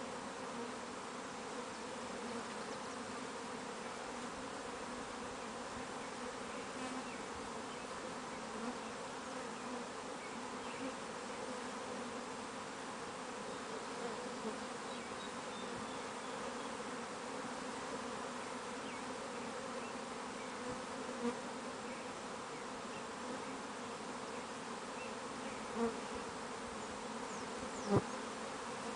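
Steady hum of a large honeybee swarm flying around a hive box and moving into it, many bees buzzing together with no let-up. A few short, louder sounds stand out near the end.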